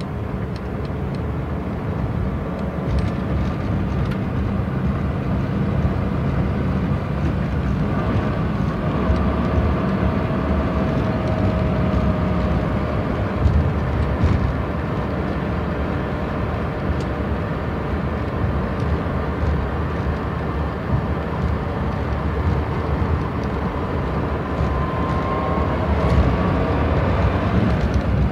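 Inside a Jaguar police car driving at medium speed through town: steady engine and road rumble in the cabin, with the engine's pitch slowly rising and falling as the car speeds up and eases off.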